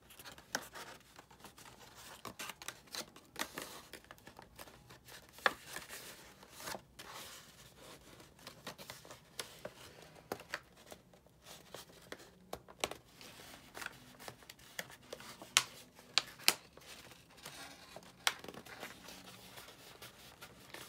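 Stiff 67 lb cardstock petals of a paper rose rustling and crinkling as hands bend and press them, with scattered sharp clicks and snaps of paper on paper.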